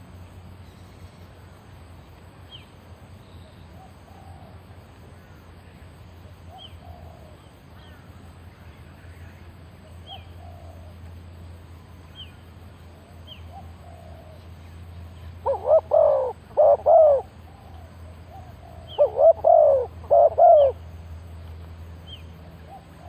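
Spotted dove cooing: two loud phrases of several notes each, past the middle, with fainter short bird calls repeating about every two seconds and a low steady hum underneath.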